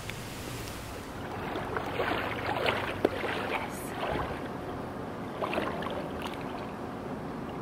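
Water splashing and sloshing in irregular bursts, with a sharp click about three seconds in.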